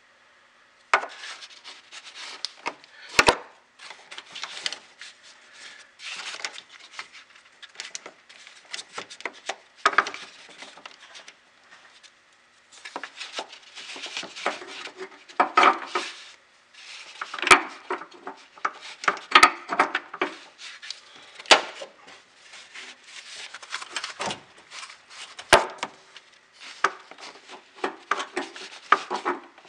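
Irregular knocks, scrapes and rubbing of hands and hard parts working around a car battery seated in its engine-bay tray, with a few sharp clicks standing out. It starts about a second in.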